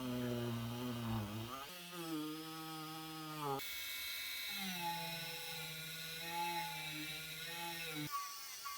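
A small electric rotary tool whining at high speed, its pitch dipping and recovering as it is pressed against the work, and shifting abruptly a few times.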